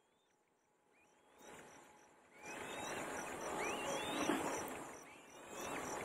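Thin rising whistled calls, about one a second, from black-winged kite nestlings begging while being fed, over a faint, even insect chirping. About two and a half seconds in, a loud rustling noise comes in under the calls.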